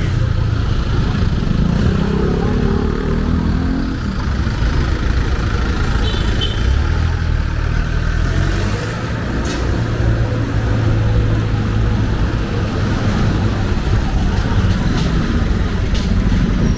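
Slow street traffic at close range: the engines of vans, a light truck and motorcycles running steadily as they creep past.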